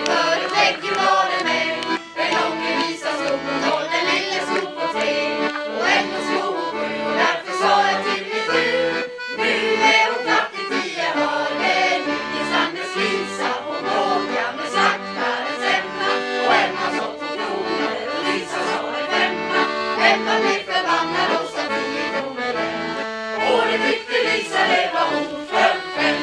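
Traditional folk tune played on fiddles, with a group of voices singing along.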